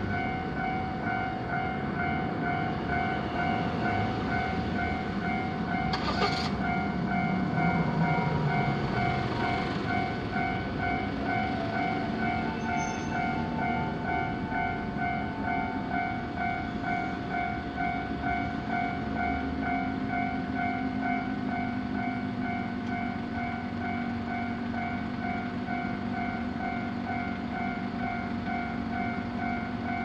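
Japanese railway level-crossing alarm ringing: a rapid, steady string of electronic dings that repeats without pause. Road traffic sounds underneath, with a brief sharp noise about six seconds in.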